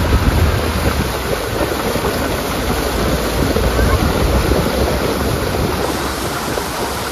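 Jeep driving through a shallow stream over a stony riverbed: steady splashing as the tyres throw up spray, with wind buffeting the microphone.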